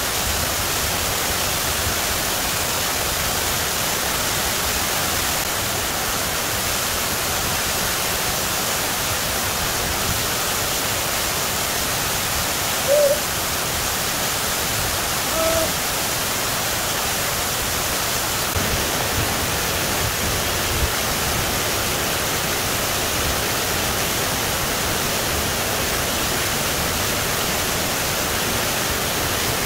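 Waterfall cascading over rocks into a pool, a steady rushing of water. Two brief, short calls rise faintly above it about halfway through.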